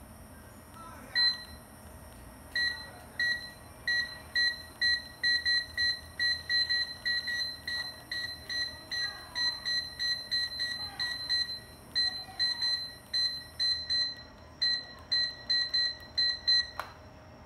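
Handheld Android barcode scanner (PDA) giving a rapid series of short, identical electronic beeps, about two to three a second with a few brief pauses; each beep confirms a successful decode of a barcode or QR code by its Zebra 2D scan engine.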